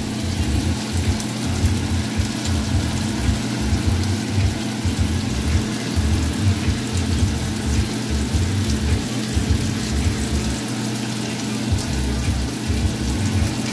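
Crab-stuffed salmon fillets sizzling in oil in a cast iron skillet: a steady crackling hiss, with the bass of a music beat pulsing underneath.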